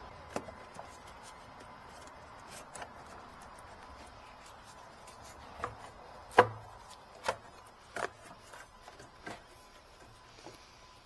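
A handful of sharp clicks and knocks at irregular intervals from hand tools and parts being handled during work on a car's radiator, the loudest knock a little past halfway.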